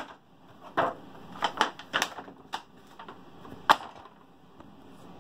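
A handful of sharp clicks and knocks, about six in four seconds with the loudest a little before the four-second mark, from a cardboard toy box and clear plastic blister tray being handled as the figures are taken back out.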